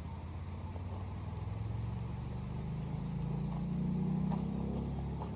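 A low engine hum that grows louder to a peak about four seconds in, then eases slightly.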